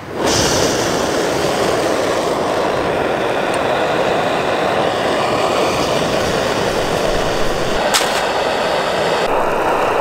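Backpacking gas-canister stove lit all at once, then its burner running with a loud, steady rushing hiss under a pot of water heating to the boil. A single sharp click about eight seconds in.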